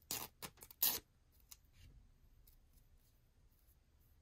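Paper backing being peeled off a Band-Aid adhesive bandage: a quick run of crackly peeling strokes in the first second, loudest just before the end of it, then a few faint rustles as the bandage is handled.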